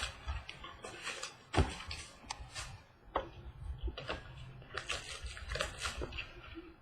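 Irregular clicks, taps and rustles from a trading card box and its packs being opened and handled, with one sharp knock about a second and a half in.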